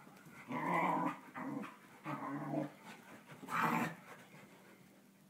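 A dog making a run of four grumbling, wah-wah-like vocalisations that sound like Charlie Brown's teacher, with short gaps between them, going quiet near the end.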